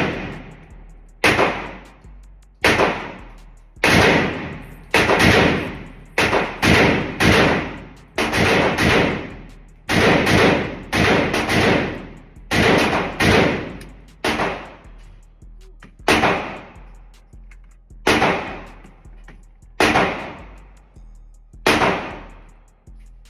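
Firearm shots at a shooting range, about twenty single shots, each with an echoing tail. They come in quick runs of two or three in the middle and slow to about one every two seconds near the end.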